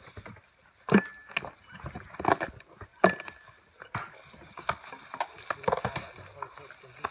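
Cork harvesting axes working bark off a cork oak: two sharp strikes with a brief ring, about one and three seconds in, then a run of smaller knocks, clicks and cracks as the thick cork slab is levered and torn loose from the trunk.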